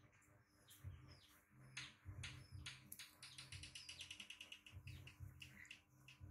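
Faint birdsong: scattered high chirps, and about three seconds in a quick trill of rapidly repeated high notes lasting under two seconds. There are soft low bumps alongside.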